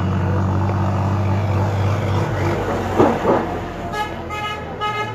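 A motor vehicle's engine running steadily at first, then a vehicle horn honking in a quick series of short toots from about four seconds in. Two short loud sounds stand out about three seconds in.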